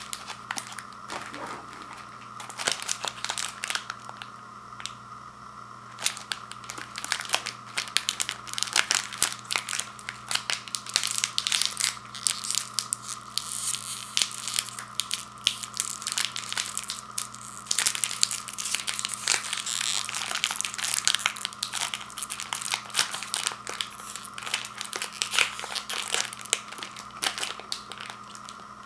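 Foil-lined plastic wrapper of a single Oreo Thins cookie pack crinkling as it is handled by hand and torn open at its crimped end: a dense run of sharp crackles that starts about two seconds in.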